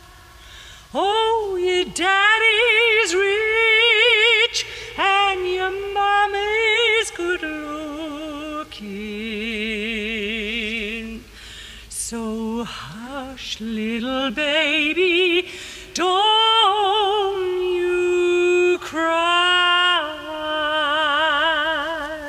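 A woman's voice singing long, held notes with a strong, wide vibrato, phrase after phrase with short breaks between them.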